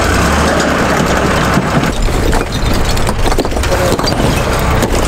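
Telehandler's diesel engine running steadily, with loose bricks clattering and knocking against each other and the truck bed as they are dumped and thrown in, the clatter thickening about two seconds in.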